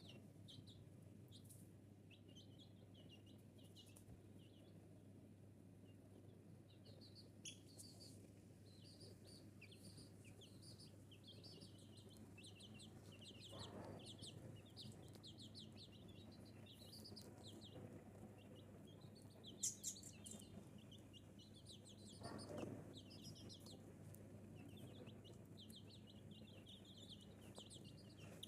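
Rhode Island Red chicks peeping: many short, high cheeps overlapping without a break, over a steady low hum. A brief sharp click sounds about two-thirds of the way through.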